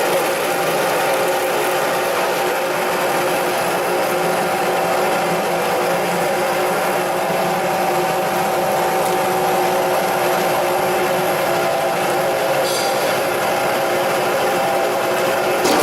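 Food-processing machinery running steadily, with a constant mechanical clatter and an even hum.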